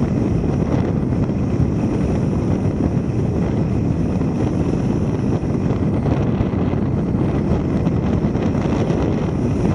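Steady rush of wind buffeting the microphone of a car-roof-mounted camera, mixed with the road noise of the car driving at speed.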